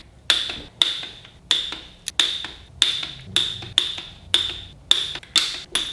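Hand ratchet clicking in short, regular strokes, about two a second, each with a brief metallic ring, as it tightens the oil cooler cover bolts.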